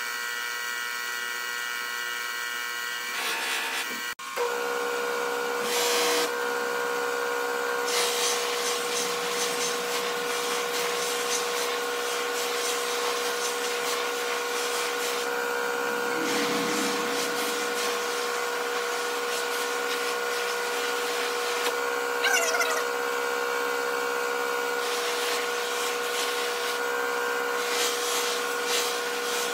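Pedestal buffing machine running with a steady hum while a guitar body's finish is pressed against the spinning buffing wheel, giving a rubbing hiss that swells with each pass. A short high squeal about two-thirds of the way through.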